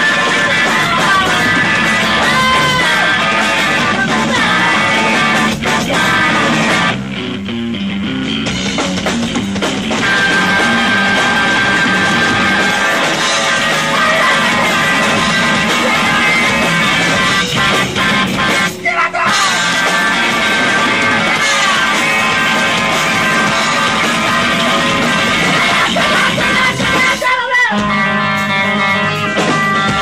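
Rock band playing live: electric guitar, bass guitar and drums. The band briefly thins out about seven seconds in, then comes back in full.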